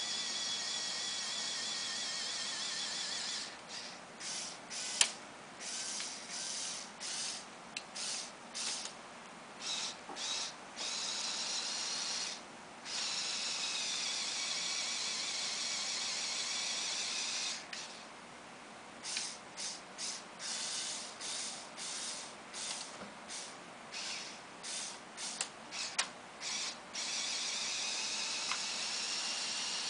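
LEGO Power Functions electric motor whining through its gearing as it drives the linear actuators that raise and tip the boom and bucket of a LEGO Technic 8265 front loader. It runs steadily, then starts and stops in quick short bursts for several seconds, runs steadily again, goes through a second long run of short bursts, and ends running steadily, with a couple of sharp clicks among the bursts.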